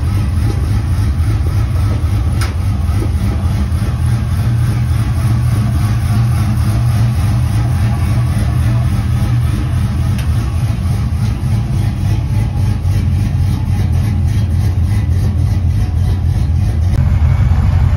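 Chevrolet Malibu SS's V8 engine idling steadily with an even low pulse, growing louder near the end.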